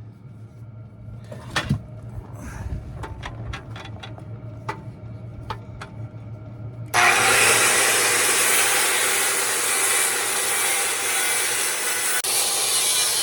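A few light knocks and clicks of handling, then about seven seconds in a power saw starts cutting through wood with a loud, steady noise that briefly dips near the end.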